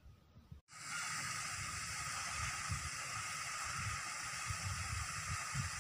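A steady hiss of spraying water from a pond fountain starts abruptly about half a second in, with low, irregular buffeting on the microphone underneath.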